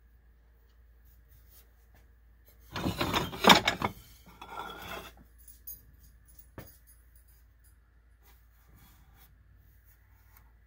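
Oak cabinet and its contents being handled: a loud rasping rub about three seconds in, a softer scrape just after it, then a single sharp click.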